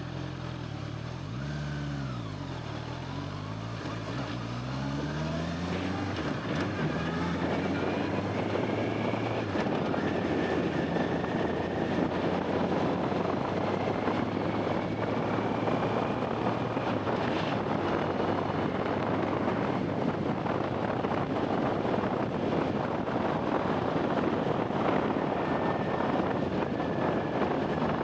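Honda CBR650R's inline-four engine, revved up and down once about two seconds in, then pulling away through rising revs. From about eight seconds in, wind noise on the camera's built-in microphone grows and mostly covers the engine.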